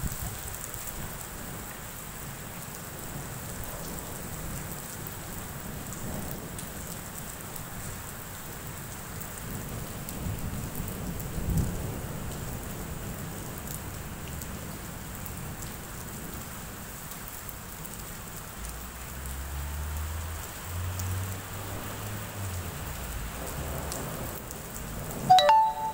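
Steady heavy rain falling on wet pavement, with thunder rumbling low for a few seconds in the last third. A brief loud knock with a short tone sounds just before the end.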